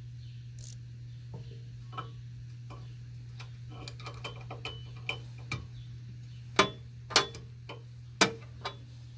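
Hand wrench clicking and clinking against a nut and bolt on a steel trailer-hitch bracket as the nut is tightened: scattered light ticks, then four louder sharp clicks in the last few seconds, over a steady low hum.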